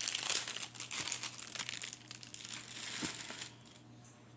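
Plastic packaging of a diamond painting kit crinkling as it is handled, with small crackles and clicks, stopping about three and a half seconds in.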